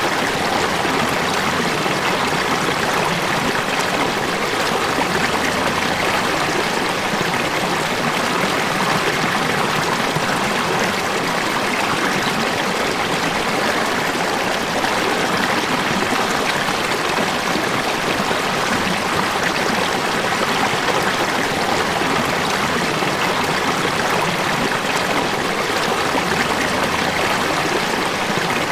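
Falling water rushing and splashing steadily, an even, unbroken wash of sound.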